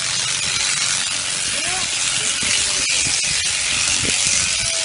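Shaft-driven sheep shearing machine running, its handpiece giving a steady high hiss, with a few sharp clicks about three seconds in.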